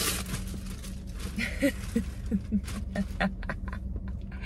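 Packaging rustling and crinkling as the onesies are unwrapped and handled, over a steady low hum, with a run of short squeaky sounds from about a second and a half in.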